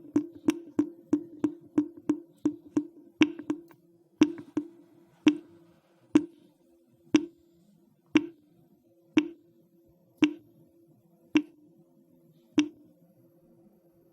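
Water dripping into a drain, each drop landing with a sharp plink and a low hollow ring. The drips slow steadily from about three a second to about one a second.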